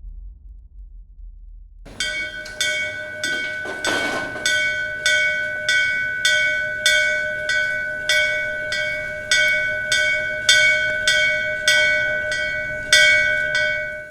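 A metal bell struck over and over at an even pace, about two strikes a second, each strike ringing on at the same pitch. It starts about two seconds in, after a fading low rumble, and cuts off abruptly near the end.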